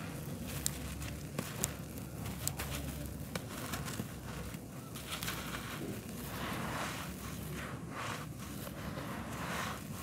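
A clump of packed, dry red dirt being crumbled by hand: crunchy crackles and small sharp snaps in the first few seconds, then a grainy rustle in bursts as loose soil pours and trickles through the fingers onto the dirt floor.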